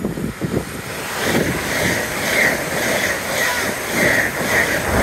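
LNER Azuma express train passing through the station at speed close to the platform: a rushing noise of air and wheels on rails that swells about a second in and stays loud as the carriages sweep by.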